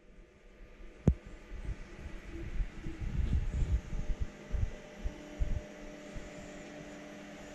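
Handling noise of a handheld camera being moved around: irregular low thumps and a sharp click about a second in, over a steady hum that grows a little stronger about five seconds in.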